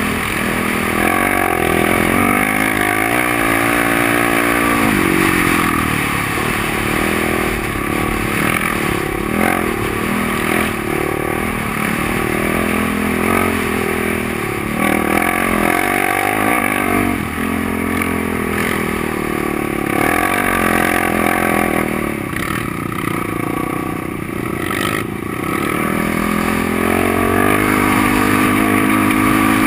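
A quad (ATV) engine heard from on board while riding over sand dunes. It revs up and down again and again as the throttle is worked, over a steady rush of wind noise.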